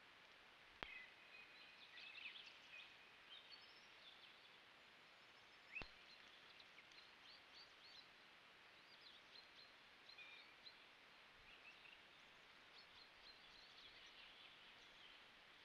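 Faint birdsong: many short chirps and trills of small songbirds, with a sharp click about a second in and another near six seconds.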